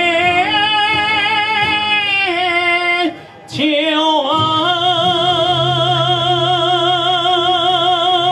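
Male tenor singing a Chinese song about dragon boat racing over a backing track, holding long notes with vibrato: a short breath about three seconds in, then one very long held note.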